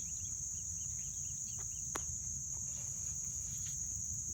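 A steady, high-pitched insect chorus, typical of crickets, with one sharp click about two seconds in.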